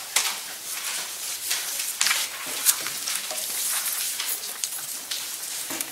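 Rustling and scattered small clicks and knocks from people shifting at their desks and handling papers, picked up by the chamber's desk microphones.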